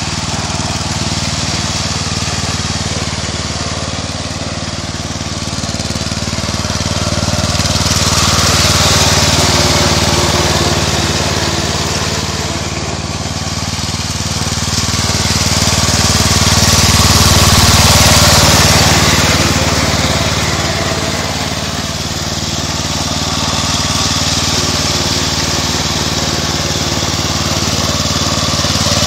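MTD riding lawn mower's engine running steadily as it drives through muddy water. A rushing, splashing noise swells and fades over it, loudest about 9 and 18 seconds in.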